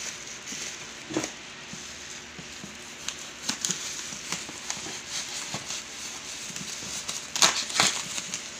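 Bubble-wrap packaging being pulled and torn off a cardboard box: plastic rustling with scattered crackles, and a cluster of louder crackles near the end.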